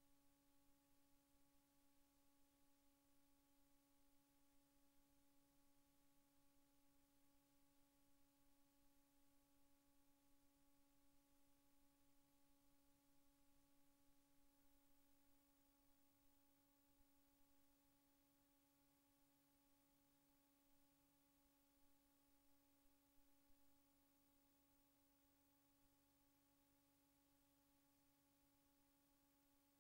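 Near silence: only a very faint steady hum.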